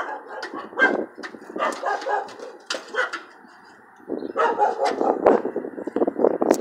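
A group of dogs barking in irregular bursts, busier and louder from about two-thirds of the way in.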